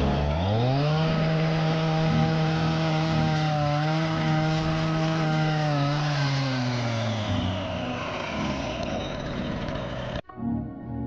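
Gas chainsaw revved from idle to full throttle about a second in and held there while cutting through sod, then let off so the engine winds down toward idle. Near the end it cuts off abruptly into soft background music.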